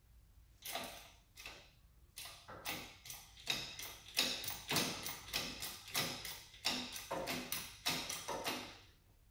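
Hydraulic shop press being pumped by its long hand lever: a sharp metallic click on each stroke, about three a second, starting about a second in and stopping shortly before the end.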